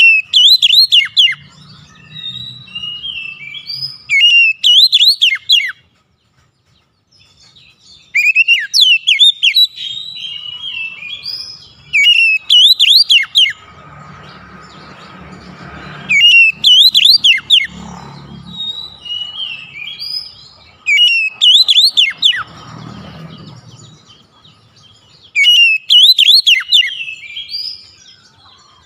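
Oriental magpie-robin (kacer) singing: about seven loud phrases, each a rapid run of sharp, sweeping whistles followed by softer, varied notes, repeated roughly every four seconds. A faint rushing noise sits under the song in the middle.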